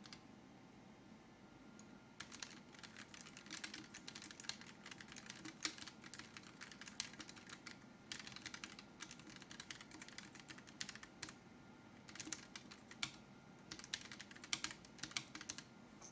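Typing on a Keychron K1 low-profile mechanical keyboard with Gateron low-profile red linear switches: rapid, quiet keystroke clicks starting about two seconds in, with a few short pauses, stopping shortly before the end.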